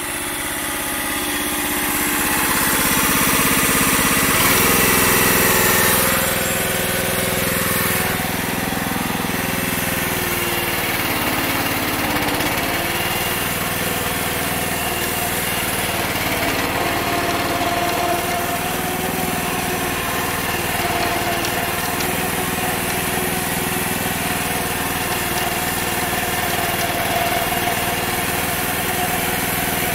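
Small gas engine repowering a Case 444 garden tractor, running under throttle as the tractor drives. The engine gets louder over the first few seconds, changes pitch a couple of times early on, then runs steadily.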